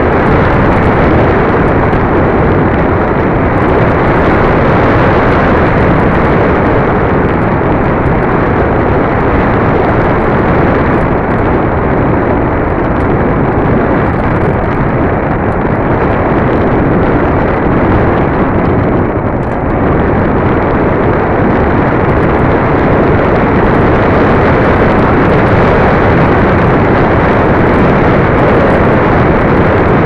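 Steady, loud rush of wind buffeting the microphone of a keychain camera on the tail of a foam RC plane in flight, easing slightly for a moment about two-thirds of the way through.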